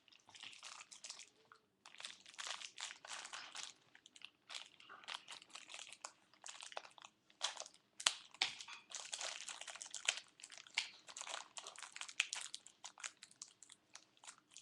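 Plastic packaging crinkling and rustling as it is handled, in dense irregular crackles with a few short pauses.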